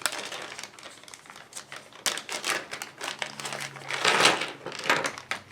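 Hands handling small plastic board-game ship miniatures on a tabletop: scattered light clicks and crinkling rustles, loudest about four seconds in.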